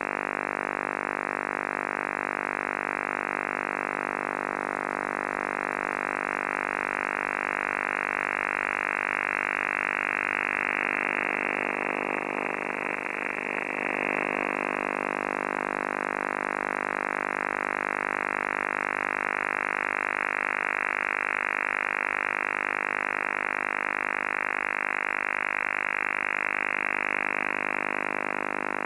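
An unidentified transmission on the 11-metre CB band coming through a radio receiver's speaker: a steady buzzing chord of many evenly spaced tones that stays the same throughout, cut off sharply above the radio's voice bandwidth, with a brief wavering about halfway through.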